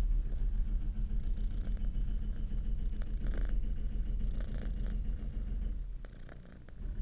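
Grey tabby kitten purring steadily, close and loud, as its head is scratched. The purr fades out for a moment near the end and starts again.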